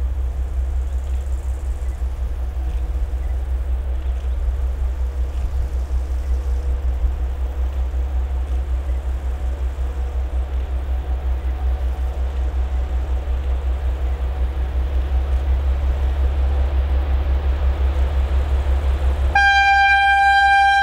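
Diesel locomotive hauling a freight train approaching, its low engine rumble growing slowly louder, then one loud horn blast of about a second and a half near the end.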